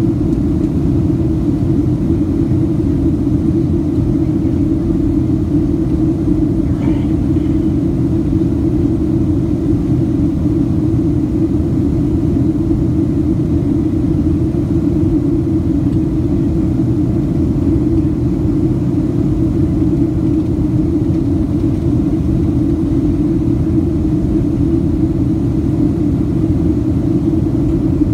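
Steady cabin roar of a Boeing 737 airliner in flight, heard from a window seat: jet engines and rushing airflow make a loud, even, low rumble with a strong hum running through it.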